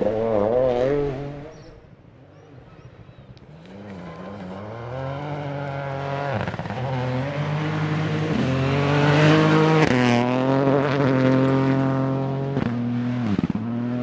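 Toyota GR Yaris AP4 rally car's turbocharged three-cylinder engine at full throttle. It pulls away and fades, then comes back louder and holds a high, steady note, broken by several short dips as it shifts gear.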